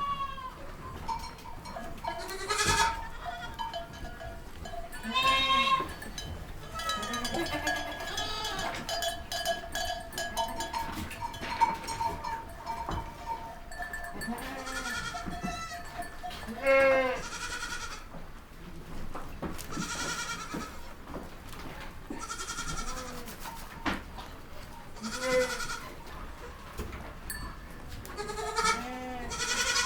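Goats bleating over and over, one wavering call every few seconds, the calls varying in pitch and length.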